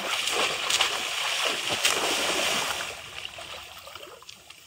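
Shallow muddy pond water splashing and sloshing as a bamboo cone fish trap is slammed down into it, in a quick run of splashes that dies down about three seconds in.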